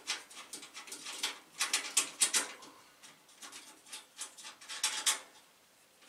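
Sheet-metal clicks, rattles and scrapes as the hinged front fan bracket of an Antec 300 PC case is unlatched and taken off. The sounds come in two clusters, about two seconds in and again near five seconds.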